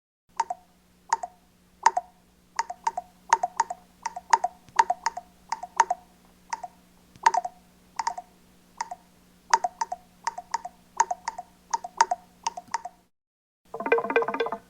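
A run of sharp, hollow-toned cartoon clicks at an uneven pace of about two a second, over a faint steady hum. They stop near the end, and plucked guitar music starts after a short gap.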